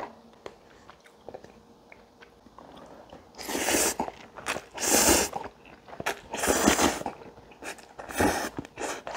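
A person slurping cup ramen noodles. There are light clicks and taps at first, then four long, loud slurps starting about three seconds in.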